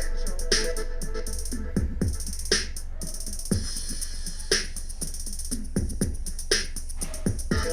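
Electronic music played through an XDOBO Draco Mini Bluetooth speaker: a deep steady bass under kick drums, with a sharp snare-like hit about every two seconds.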